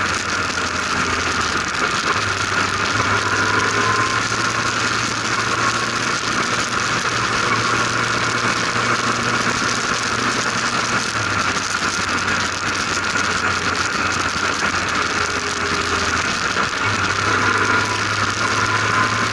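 Formula RP1 single-seater race car's engine running steadily at speed, heard from the open cockpit. Its low hum shifts in pitch a few times.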